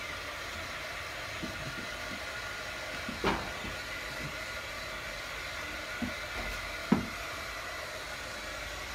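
Corded handheld hot-air dryer blowing steadily with a whine, drying a fresh matte topcoat on a painted wooden sign. A few short knocks sound over it, about three and seven seconds in, the second the sharpest.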